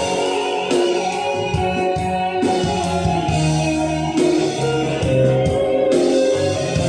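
A pop ballad's instrumental passage, with sustained keyboard chords, bass and a steady beat, played back through Technics SB-K66 loudspeakers.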